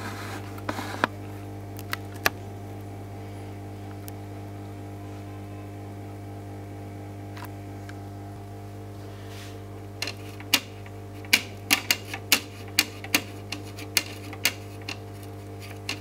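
A steady electrical hum with several pitched lines. From about ten seconds in, a run of sharp clicks about two a second as a small brush taps on a circuit board, dabbing flux onto a chip.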